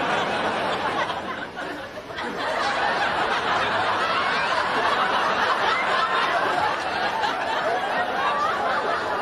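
A crowd of voices laughing and chattering all at once, a steady dense din in which no single speaker stands out.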